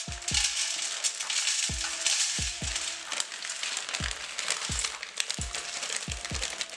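Seasoned water boiling and sizzling in a handmade aluminium-foil bowl over a gas flame, a steady hiss, with background music carrying a regular bass beat.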